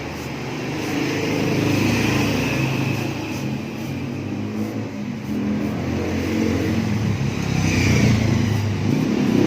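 Motor vehicle engines passing by, a continuous rumble that swells twice, about two seconds in and again near the end.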